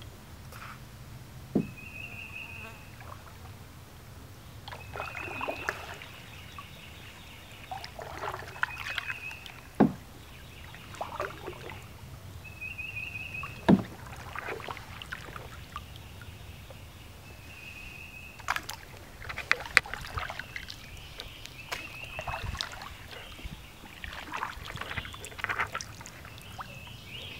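Double-bladed kayak paddles dipping and splashing through the water in steady strokes, with a few sharp knocks among the strokes. A short high trill repeats about every four seconds in the background.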